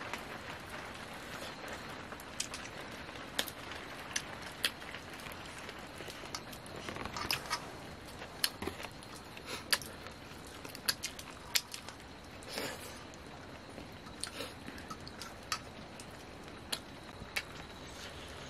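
Eating rice and chicken by hand from a steel plate: fingers mixing the food, with chewing and scattered sharp clicks over a steady background hiss.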